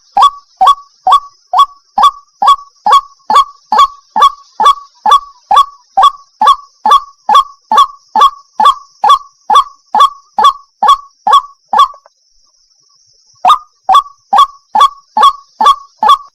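White-breasted waterhen (ruak-ruak) calling: a fast, regular string of sharp notes, each sliding downward, about two a second. The calls break off about twelve seconds in and start again a second and a half later, over a steady high hiss.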